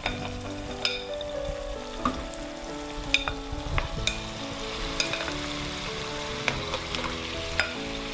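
Marinated chicken pieces going into a hot kadai of onion-tomato masala, sizzling steadily, with repeated sharp clinks of a fork and spoon scraping the chicken off a glass bowl and against the pan.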